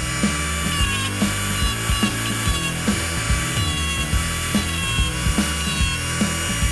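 Background music with a steady beat and bass line, over a steady high-pitched whine.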